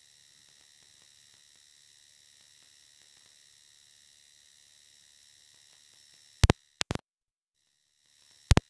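Faint steady electronic hiss with a thin high whine, the recording's own noise, broken by a few sharp clicks about six and a half seconds in and again near the end.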